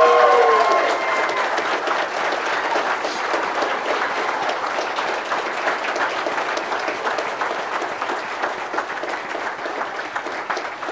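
Wedding guests applauding steadily, with cheering whoops in the first second.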